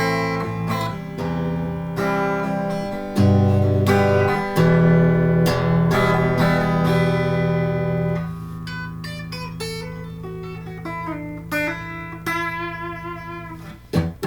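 Les Paul-style kit electric guitar played through a 50-watt Peavey Valve King 1x12 tube combo amp with the controls turned all the way up. Sustained ringing chords run for about the first eight seconds, then a run of single notes follows.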